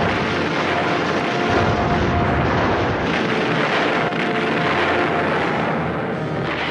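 A steady, loud roar of film sound effects like a rushing aircraft or missile, with a few faint held tones underneath.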